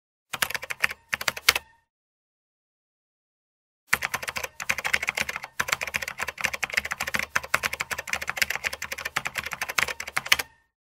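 Computer keyboard typing sound effect: rapid key clicks in a short run, a pause of about two seconds, then a long unbroken run of clicks that stops just before the end.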